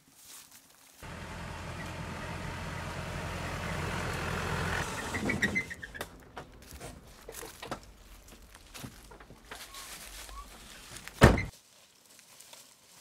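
Pickup truck engine running and growing louder as it drives up, then a brief high squeal of brakes as it stops about five seconds in. Scattered small clicks follow, then one loud thunk near the end.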